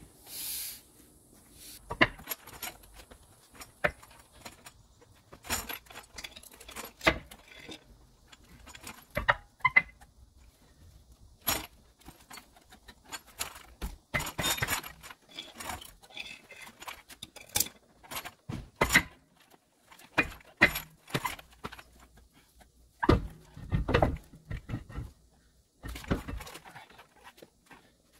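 Irregular metallic clinks and knocks of hands and tools on a motorhome's rear wheel hub as the wheel is worked off, with a few heavier thumps late on.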